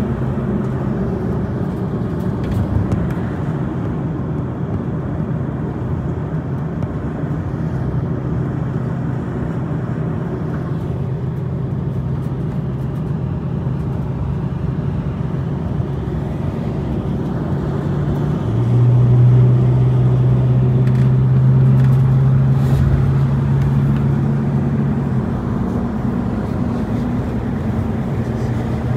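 Steady drone of a car's engine and tyre noise heard from inside the cabin while it drives along the highway. About two-thirds of the way through, the low hum grows louder for several seconds, then settles back.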